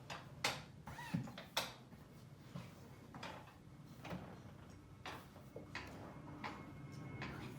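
Light, irregular clicks and knocks from handling a newly assembled office chair, about one every second.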